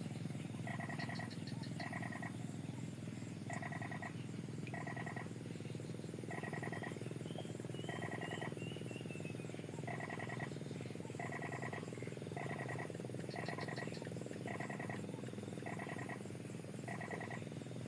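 Frogs calling in short rattling croaks, about one a second, over a steady low hum.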